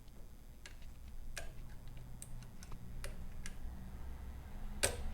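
Light metallic clicks of a music-wire lifter and a tension wrench working the levers inside a five-lever deadbolt: a handful of scattered ticks, with a sharper click near the end.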